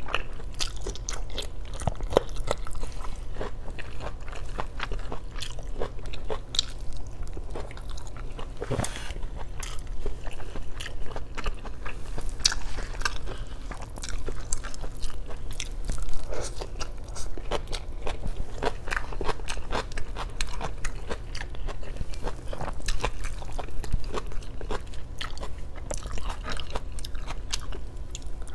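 Close-miked eating sounds: chewing and biting adobo meat and vegetables, with irregular crunches and wet mouth clicks.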